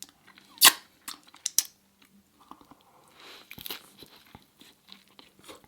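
Close-miked eating sounds: a sharp crunchy bite about half a second in, then quieter chewing with scattered crunches and mouth clicks.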